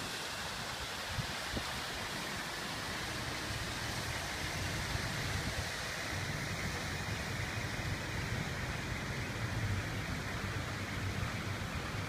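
Water spilling down a stepped concrete cascade fountain into a pool, a steady rushing splash, with a low rumble joining about four seconds in.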